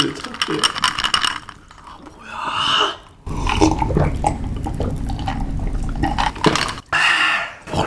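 Iced cola being drunk from a tall glass close to the microphone: liquid and gulping sounds, with short clicks of the glass and ice in the first second or so.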